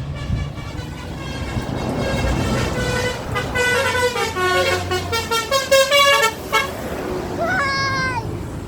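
Tour bus's multi-trumpet 'telolet' (basuri) musical air horn playing a quick stepping tune over the low rumble of the bus engine. The tune runs from about two seconds in to about six and a half seconds.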